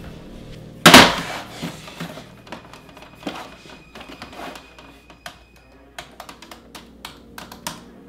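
A loud thud about a second in, then typing on a laptop keyboard: short, irregular key clicks, with quiet background music.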